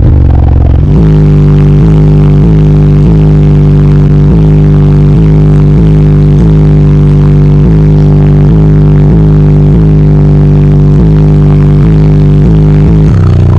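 Bass-heavy music played very loud through a car audio system's four 15-inch Ascendant Audio Mayhem subwoofers: a deep droning bass line pulsing about every two-thirds of a second.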